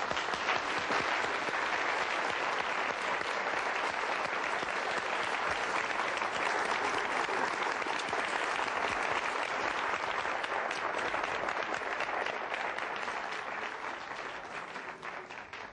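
A large audience applauding: a dense patter of many hands clapping that starts at full strength and dies away near the end.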